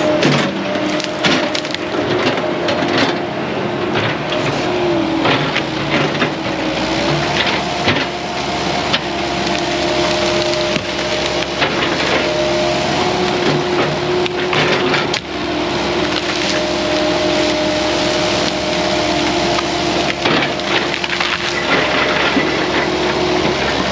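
A heavy land-clearing machine's diesel engine running under load with a steady hydraulic drone, while wood and brush crack and splinter many times as they are crushed and broken.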